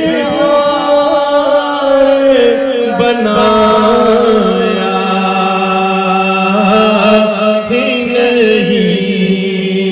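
A man singing an Urdu naat into a microphone, holding long drawn-out notes with wavering ornaments on them.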